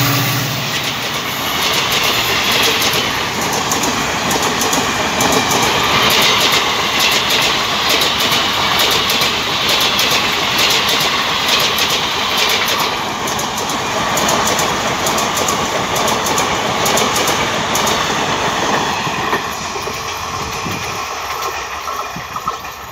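Diesel-hauled Indian Railways passenger train of ICF coaches passing at speed, its wheels clattering over the rail joints in a steady rush. The sound fades near the end as the last coaches go by.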